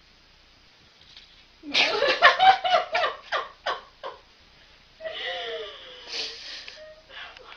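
A person laughing hard: a run of about nine loud ha-ha bursts lasting a couple of seconds, then a quieter drawn-out sound falling in pitch and a few softer bursts near the end.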